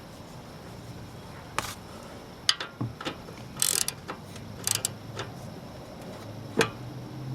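Socket ratchet clicking in short, irregular bursts as the 17mm drain plug is wound back into a GY6 150cc scooter engine.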